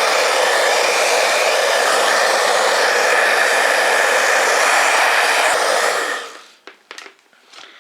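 Hot-air blower running steadily with a loud even rush, warming a phone's front glass to soften its adhesive; it is switched off about six seconds in and fades out, followed by a few faint clicks.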